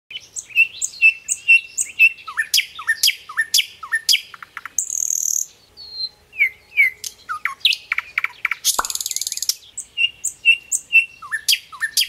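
Birdsong: a busy run of quick chirps and down-slurred whistles, broken by two harsh buzzy calls, about half a second long, near the middle and again about three-quarters of the way through.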